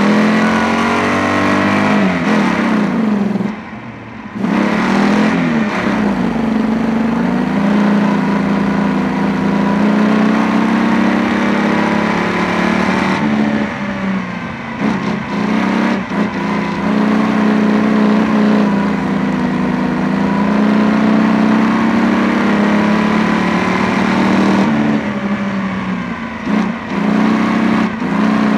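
Stock car engine racing flat out, heard on board, the revs rising and falling as the throttle is lifted and reapplied for the turns. There is a brief drop about three and a half seconds in, and more lifts about halfway through and near the end.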